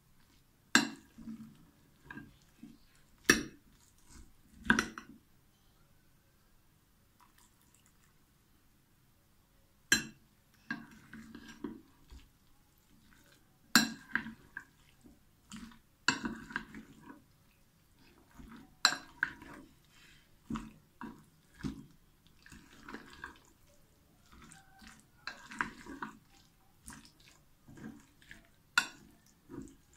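Metal spoon stirring thick gram-flour batter with potato cubes in a glass bowl: soft wet squelching, broken by sharp clinks of the spoon against the glass every few seconds.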